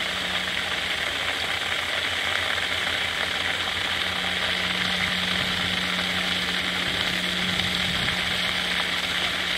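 Steady hiss of a strong water jet from a garden hose spraying onto a lawn, with a low steady hum underneath.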